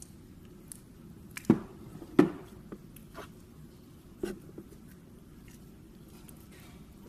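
Small objects being handled and set down: a scatter of light clicks and taps, with three sharper knocks, two close together near the start and one a couple of seconds later.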